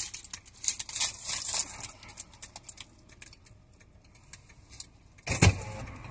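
Paper snack wrapper crinkling in quick crackly bursts as a fried snack is handled and eaten, fading to small rustles, then one loud low thump about five seconds in.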